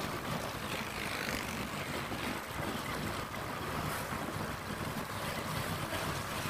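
Steady wind rush and road noise of a motorcycle riding at speed along a highway, with wind buffeting the microphone.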